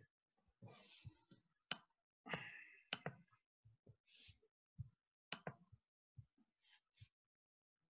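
Near silence on an open microphone, broken by a scatter of faint short clicks and a few soft breaths.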